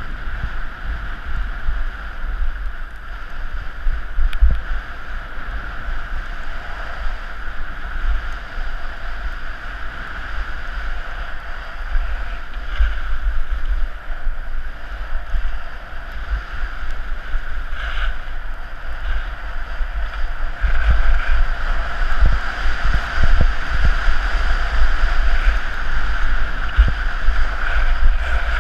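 Wind buffeting the microphone of a body-worn camera on a fast ski descent, with skis hissing and scraping over packed snow. The rush grows louder about two-thirds of the way through.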